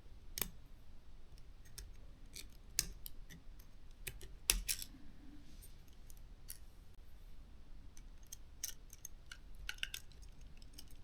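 Scattered small clicks and taps of hand tools and small plastic parts as the drone's optical sensor is freed and lifted out, the loudest about half a second in and about four and a half seconds in.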